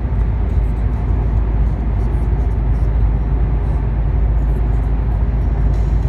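Steady low rumble inside the cabin of a 2015 Chevrolet SS cruising at highway speed: tyre, road and engine noise.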